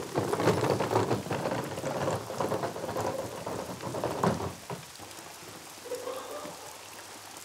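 Rain falling on a car and pavement, a dense crackling patter that is loudest for the first four seconds or so and then eases to a quieter, steady patter.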